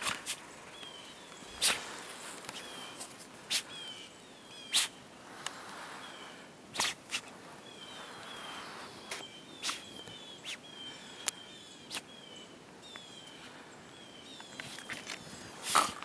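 Siberian husky digging and rooting with its nose in deep powder snow after a stick: irregular sharp sounds of snow and breath, the loudest near the end as it comes up with the stick. Through most of it runs a steady series of short high chirps.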